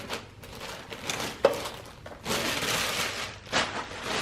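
Rustling and handling noise from plastic vacuum-cleaner parts and packaging, with a sharp click about one and a half seconds in and a louder stretch of rustling about two seconds in.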